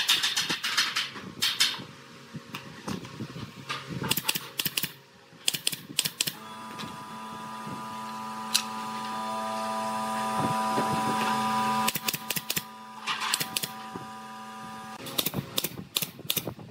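Wooden boards knocking and clattering as they are handled and laid on a concrete floor, in quick clusters of clicks. From about a third of the way in, a motor hums steadily for several seconds, slowly getting louder, then drops and stops shortly before the end, where the knocking resumes.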